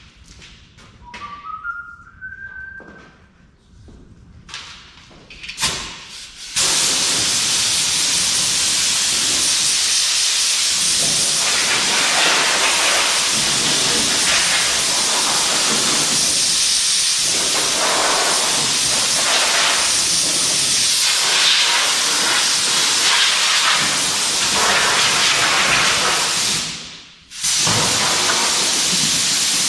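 A few light clicks, then about six seconds in a loud, steady hissing spray starts. It cuts out for a moment near the end, then starts again.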